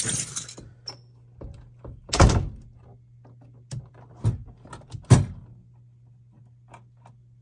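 Dull thunks and knocks of a UPS and its battery being handled: a strong thunk about two seconds in, then lighter knocks and small clicks around four and five seconds. A steady low hum runs underneath.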